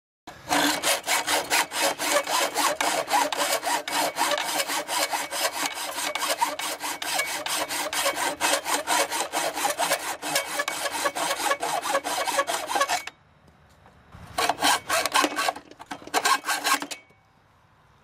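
Hand hacksaw cutting through a steel exhaust pipe section, quick even back-and-forth strokes, several a second. The sawing stops about two-thirds of the way in, then comes back in two short runs near the end.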